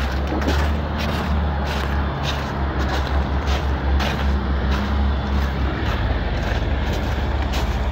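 Steady low rumble with scattered short crunches, like footsteps on snowy gravel.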